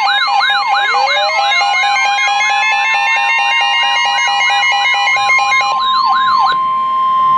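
Several electronic siren tones layered together: a fast wail of about three sweeps a second, a two-tone hi-lo alternation and a slowly rising tone. About five and a half seconds in they give way to a single steady alert tone, the kind sent before a warning message on NOAA Weather Radio.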